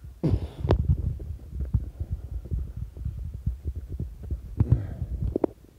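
Handling noise from a phone being carried: irregular low thumps and rumble, with a brief rush of noise about half a second in.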